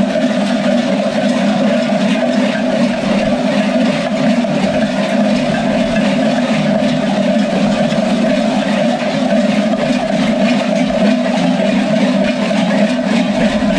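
Dozens of large goat bells strapped around the waists of Skyros Geroi carnival dancers, clanging together in a dense, steady mass of ringing as the dancers move.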